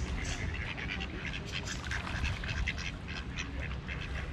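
Mallard ducks calling, a quick run of many short quacks.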